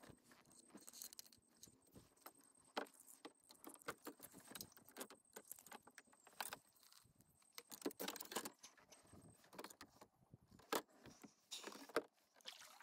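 Faint, scattered clicks and light rattles of fishing rod and tackle being handled on a kayak, irregular throughout.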